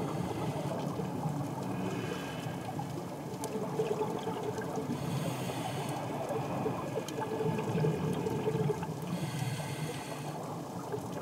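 Underwater sound of a scuba diver's regulator: exhaled air bubbling and gurgling out in bursts every few seconds over a steady watery hiss.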